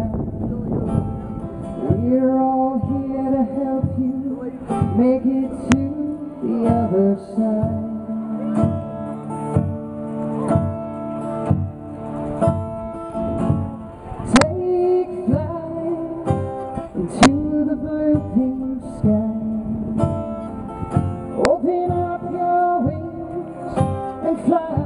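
A woman singing to her own acoustic guitar, holding long notes with a waver over the guitar strokes.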